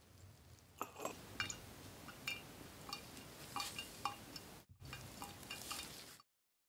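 Light clinks and taps of a ceramic coffee mug being handled on a table, a dozen or so scattered short ringing ticks over faint room background. The sound drops out briefly about two-thirds through and stops shortly before the end.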